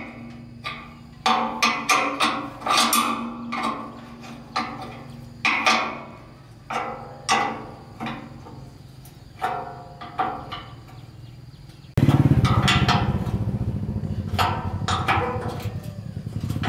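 Irregular sharp metal knocks and hammer taps, each with a short ringing, from work on a rice thresher's metal parts. About twelve seconds in, a steady low mechanical running noise cuts in abruptly, with more taps over it.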